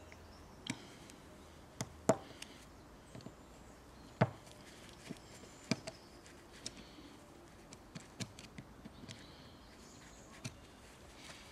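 Scattered small clicks and taps of a screwdriver on the screws and metal body of a small Walbro chainsaw carburettor being unscrewed, irregular and light, with two sharper knocks about two and four seconds in.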